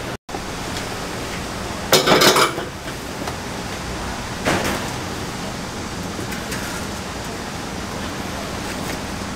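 A plastic tub of raw whole chickens being handled against the rim of a cast-iron cauldron, with a short clatter about two seconds in and a smaller knock around four and a half seconds, over a steady noisy kitchen background.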